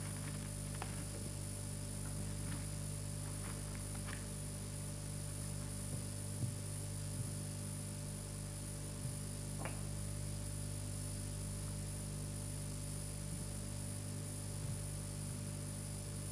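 Steady electrical mains hum with a high whine and hiss, broken by a few faint clicks.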